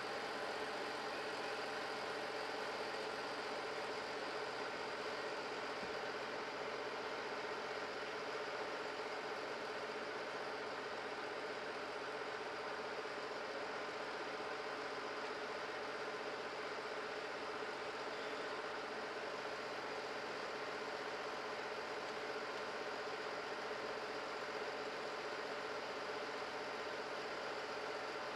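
A fire engine's engine running steadily, a constant drone with several held tones over a hiss.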